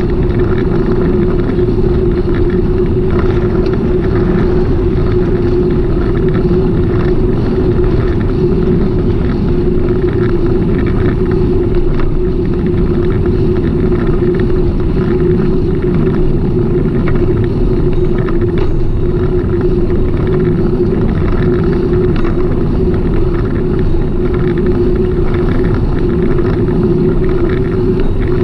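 Steady rumble of wind and riding noise on the microphone of a camera travelling on a bicycle, with a constant hum underneath that doesn't change pitch.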